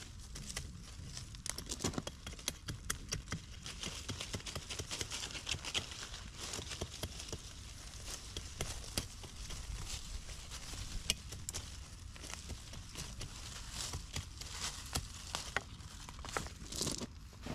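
Rustling and crackling of dry garden debris and plant material being cleared from a flower bed, with frequent sharp clicks.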